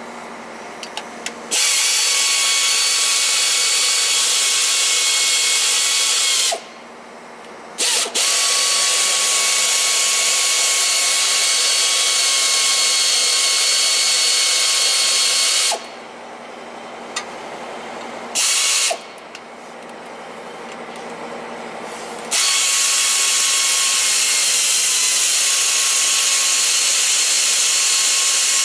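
Hand-held electric power tool running with a steady high whine as it spins out bolts on a truck's gearbox. It runs in three long spells of several seconds each, with short pauses and one brief burst between them.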